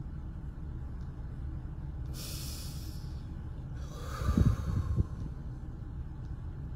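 A man crying: a sharp sniff about two seconds in, then a louder, ragged breath out in a few pushes that blows on the microphone, over the steady low rumble of a car's cabin.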